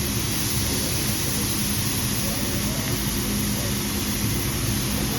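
Steady hiss and low hum at a hibachi grill table: food sizzling on the flat-top teppanyaki griddle under a running exhaust hood.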